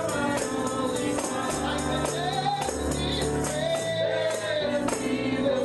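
Gospel church music: a tambourine struck in a steady beat over a bass line, with singing voices.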